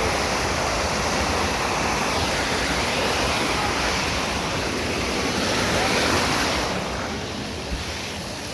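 Rushing water of a mountain valley stream, a steady loud wash that eases slightly about seven seconds in.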